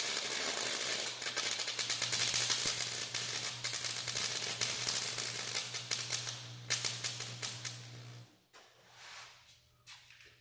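Electric arc welder running: a steady crackling hiss broken by irregular popping, over a low hum, cutting off about eight seconds in. The popping comes from voltage drops while welding.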